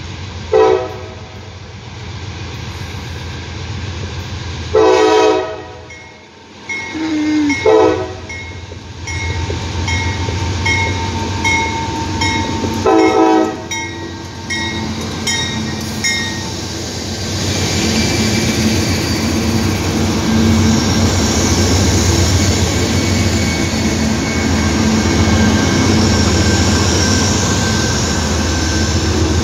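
Norfolk Southern AC44C6M diesel locomotive sounding its horn in four blasts as it approaches. The lead locomotives then pass at close range: a loud, steady rumble of diesel engines and steel wheels on the rails.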